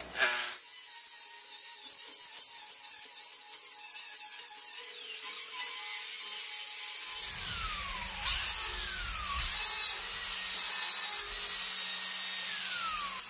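Angle grinder grinding the plasma-cut edge of quarter-inch steel plate, knocking off the cut fragments to leave a smooth, square edge to weld to. A steady hissing grind of abrasive on steel, with a whine that drops in pitch three times in the second half.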